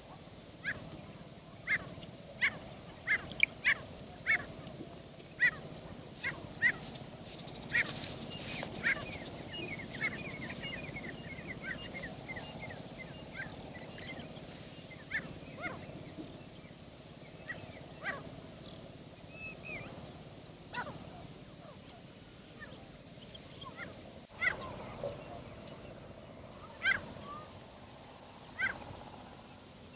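Birds chirping outdoors: short, high, mostly falling chirps at irregular intervals, with a quick run of them about nine seconds in.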